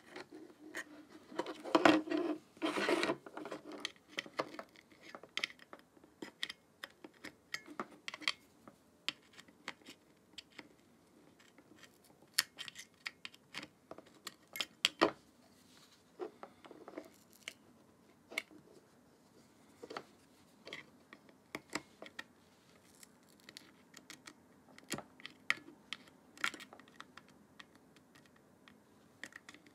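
Small clicks, ticks and scrapes of a precision screwdriver working the tiny screws of a Nikon Z50's rear screen assembly, with fingers handling the plastic and metal parts. There is a louder spell of handling noise in the first few seconds.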